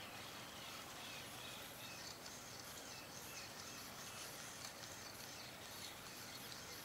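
Quiet outdoor ambience: a steady hiss with faint, short bird chirps repeating every half second or so, and faint high ticking in the background.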